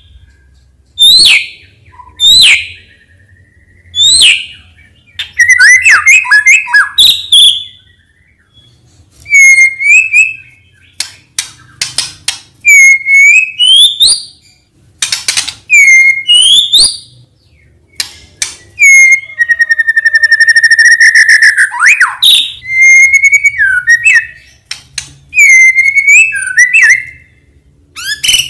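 Medan-type white-rumped shama singing loudly: phrases of clear whistles, rising slurred notes and quick runs of notes, separated by short pauses, with one long held whistle about two-thirds of the way through.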